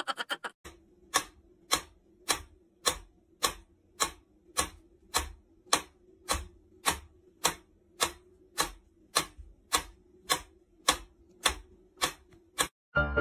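Mechanical pendulum metronome ticking at a steady tempo, a little under two ticks a second. It starts about half a second in and stops just before the end.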